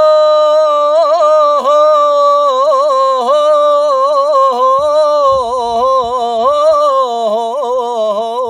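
A man singing unaccompanied, holding one long drawn-out note with melismatic ornaments and wavering turns, the sustained vocal line of a Levantine mawwal (ataba). The pitch sinks slightly near the end.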